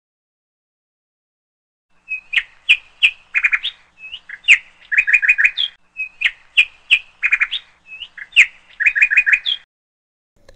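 Parrot chirping: strings of short, high chirps and quick trills, starting about two seconds in, the same phrase heard twice over.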